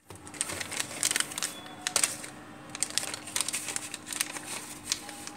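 Thin plastic packaging crinkling and crackling in irregular bursts as a small bag of drone propellers is handled and pulled open.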